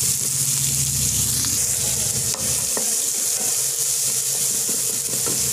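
Sliced onion and chopped garlic sizzling steadily in hot oil in a nonstick frying pan as they are sautéed, stirred with a wooden spatula, which gives a few light taps against the pan about halfway through.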